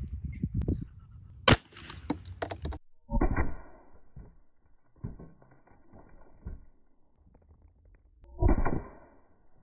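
A single sharp shot from a big-bore AEA BinTac M50 PCP air pistol about a second and a half in. Then come four duller impact sounds of the slug striking a coconut, spread over the next six seconds, each with a faint ringing tone.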